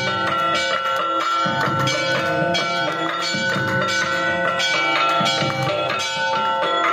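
Temple bells ringing continuously for an aarti, struck over and over in a quick, steady clanging so their tones hang on and overlap.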